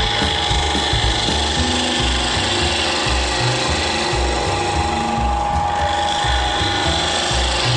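Wood lathe running with a steady motor whine while a bowl gouge cuts the inside of a turning wooden bowl, a continuous rough hiss of shavings coming off the bevel-rubbing cut.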